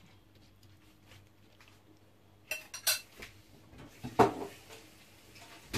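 A metal spoon scraping and clinking against a nonstick frying pan while split mung beans are spread out in it: faint scraping at first, then a few sharp clinks and a louder knock about four seconds in.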